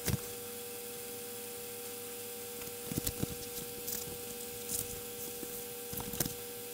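Sinclair QL Microdrive spinning an endless-loop tape cartridge with a steady hum while the QL searches the tape for the start of a program to load, with a few light clicks. The owner doubts it will find the program, suspecting the old cartridges are worn out.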